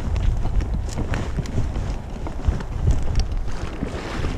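Wind buffeting the microphone, with irregular rustling and crunching footsteps through dry grass and brush.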